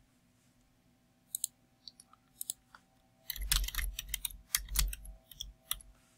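Typing on a computer keyboard: a few separate clicks about one to three seconds in, then a quick run of keystrokes with low thumps as an IP address is typed in.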